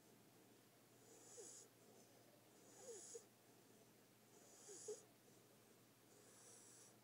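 Puppy snoring softly, with four hissing breaths coming about every second and a half to two seconds. Faint squeaky whistles ride on three of the breaths.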